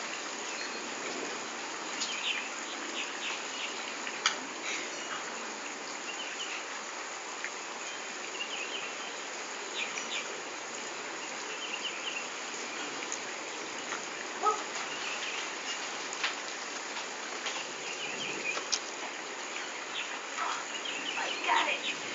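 Outdoor background ambience: a steady hiss with scattered faint, high chirps, and a brief call about two-thirds of the way through.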